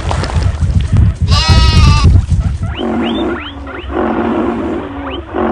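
Animal stampede sound effect: a low rumble of many hooves, with a high animal call about a second and a half in, followed by a string of short rising animal calls.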